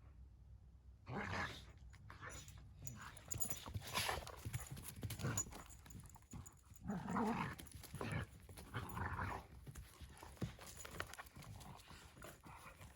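A dog panting and snuffling in faint, irregular bursts.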